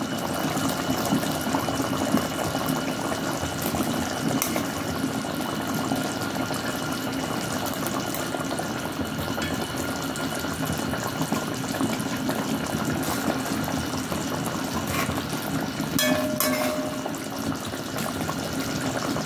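Pot of coconut-milk mackerel rundown simmering on the stove, a steady bubbling hiss, with a couple of brief clicks from the metal spoon in the pot.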